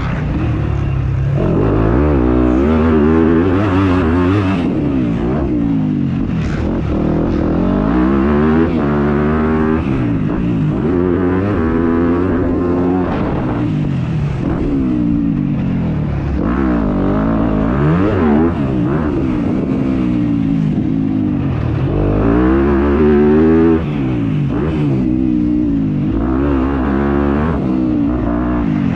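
Yamaha YZ250F dirt bike's single-cylinder four-stroke engine being ridden hard, revving up and dropping back again and again, its pitch climbing and falling with each burst of throttle and shift.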